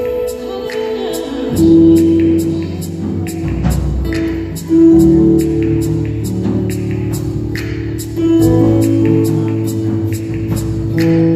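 Live gospel worship music from a praise band: acoustic guitar and keyboard under the voices of singers holding long notes, with a steady high ticking beat running through it.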